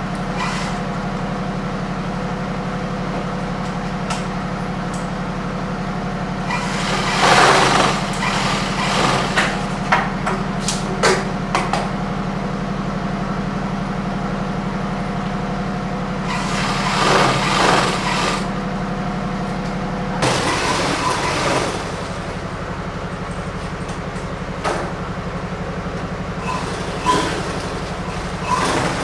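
Electric-motor sewing machines running with a steady machine hum, with several louder bursts of stitching noise; the hum shifts a little about two-thirds of the way in.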